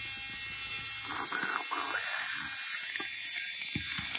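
A few faint clicks and light handling taps over a steady, high-pitched buzzing hiss.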